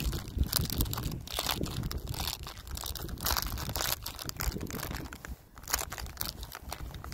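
Empty plastic nut packets crinkling and crumpling in a hand: a run of irregular crackles.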